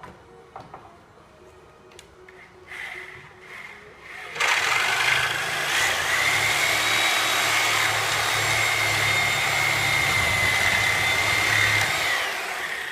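An older Porter-Cable Tiger Saw reciprocating saw cutting through the nails between pallet boards. It starts about four seconds in, runs steadily with a high whine for about eight seconds, then winds down near the end. A few light knocks come before it starts.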